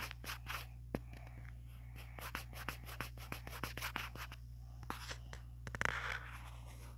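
Rapid tapping and scratching of a finger on a phone's touchscreen while scribbling on it, many quick clicks with short rubbing strokes and a louder scratch about six seconds in, over a low steady hum.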